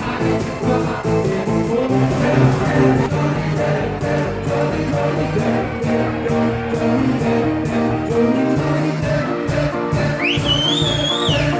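Live party cover band playing rock-style music with vocals over a steady drum beat, recorded on a phone from the stage, so the sound is thin. Near the end a high tone rises, holds and falls.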